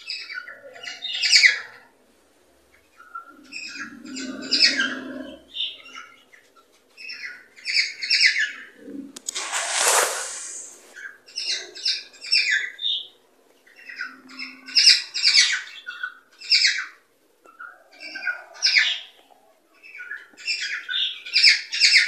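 Cockatiels chirping and warbling in repeated bursts of a second or two, with short pauses between them. About halfway through comes one harsh, noisy squawk.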